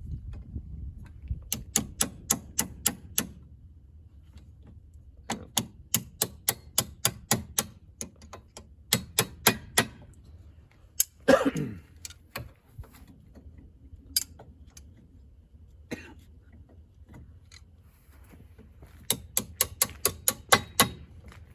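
Hand ratchet being worked in short runs of sharp, evenly spaced clicks, about four to five a second. One squeak falls in pitch about halfway through.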